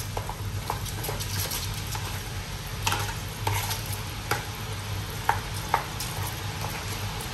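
Gram-flour (besan) batter bhaliyan deep-frying in hot oil, a steady sizzle with a low hum beneath it. Several sharp clicks, about seven, break through the sizzle.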